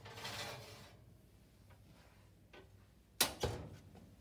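A metal baking tray scraping as it is slid onto a convection oven's wire shelf, then, about three seconds in, one sharp knock with a brief ring as the stainless oven door is pushed shut. A faint steady low hum runs underneath.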